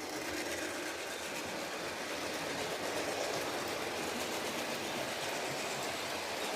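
Model steam locomotive running on a layout, its DCC sound decoder playing steam locomotive sounds over the rumble of the model running on the track; the sound is steady.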